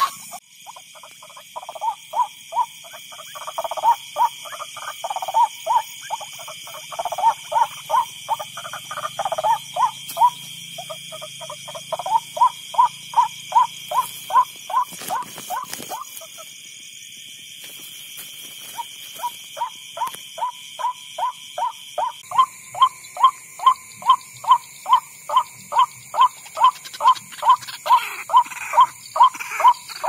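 White-breasted waterhen call from an electronic bird-caller's speaker, used as a lure: a short croaking note repeated about twice a second. It breaks off for a couple of seconds about halfway through, then resumes.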